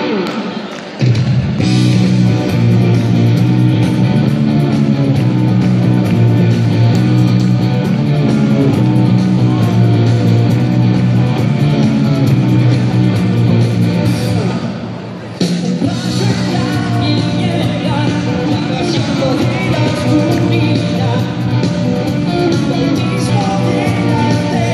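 Live rock band playing amplified through the stage speakers, electric guitar and drums with a singer. The music drops away briefly about a second in and again about fifteen seconds in, then the full band comes straight back in.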